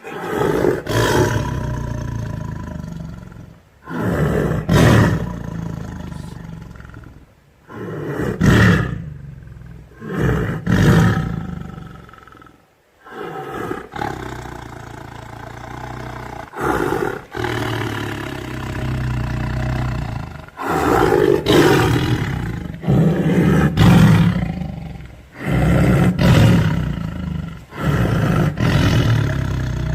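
Tiger growling in a string of deep, rumbling roars, one every two to three seconds, each starting abruptly and tailing off.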